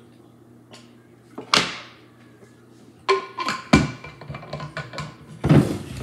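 Glass drinking bottle and its metal screw cap being handled: a sharp knock about a second and a half in, then a run of clicks and ringing clinks with one louder knock as the cap is twisted back on. Loud rustling handling noise follows near the end.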